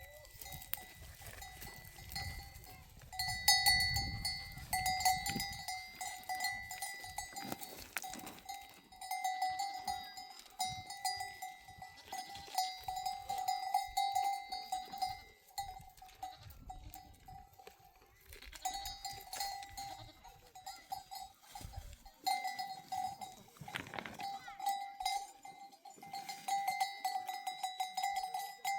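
Metal bells clanking on and off, each clank ringing on with a steady tone.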